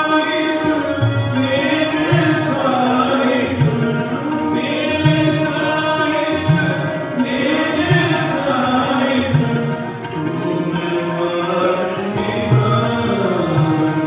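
Background music: a voice singing a slow, gliding melody over steady held tones, with a steady tabla beat.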